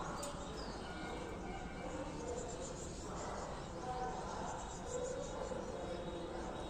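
Steady outdoor background noise with faint, high chirping scattered through it.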